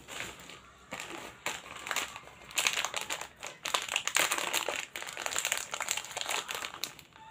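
Plastic snack packet crinkling and crackling as hands tear it open and shake it out, in irregular bursts that grow busier after the first second or so.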